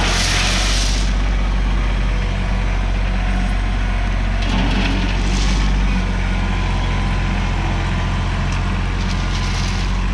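Tractor engine running steadily, with two brief hissing rushes, one at the start and one about four and a half seconds in.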